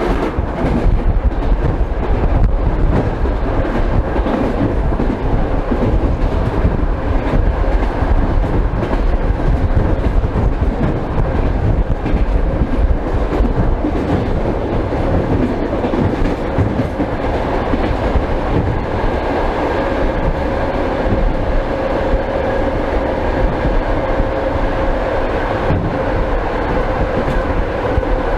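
Old suburban electric train running along the line, heard through an open, glassless window: the clatter of wheels on the rails over a steady rush of running noise. A steady whine grows stronger about two-thirds of the way through.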